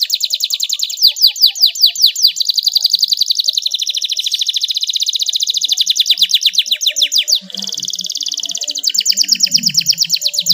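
Canary singing a long rolling trill: rapid runs of high sweeping notes with no break. About three quarters of the way through the notes merge into a short buzzier trill, then the fast notes return.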